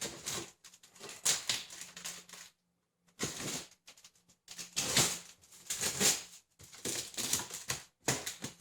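Cardboard shipping box being opened by hand: irregular rustling, scraping and crinkling of cardboard and packing, with a short pause about three seconds in.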